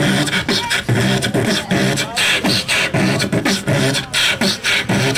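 A man beatboxing into a handheld microphone: a fast, steady run of mouth-made drum hits with short hummed and pitched vocal notes woven between them.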